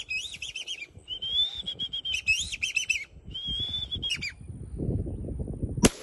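High whistled bird calls: long steady notes broken by quick rising and falling warbles, in three bursts over the first four seconds. Then a single gunshot goes off just before the end.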